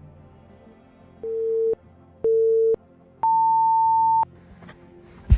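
Race-start countdown beeps: two short beeps, then a longer beep an octave higher. Faint background music plays underneath, and a sharp thump comes right at the end.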